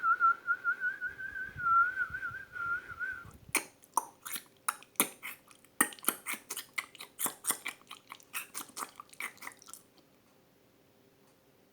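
A person whistling a warbling, bird-like trill, which breaks off a little over three seconds in. It is followed by a quick, irregular run of tongue clicks and lip pops for about six seconds, which stops a couple of seconds before the end.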